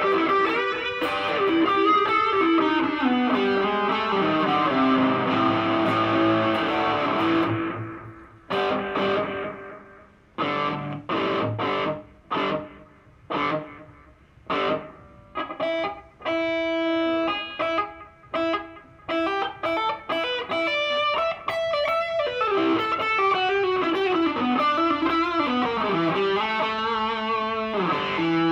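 Electric guitar played through an Artec G10x 10-watt practice amp. It starts with sustained, overlapping notes, switches about eight seconds in to short, clipped notes and chords with silent gaps between them, and returns to sustained phrases near the end.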